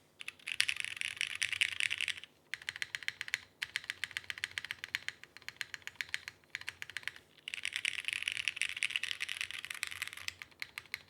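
Typing on a custom mechanical keyboard (Kei R2 with brass bottom, PC half plate, lubed Hyperglide Cherry MX Black linear switches, TX stabilizers): dense runs of fast keystrokes with short pauses, a few of them flurries of rapid key presses. The typing stops near the end.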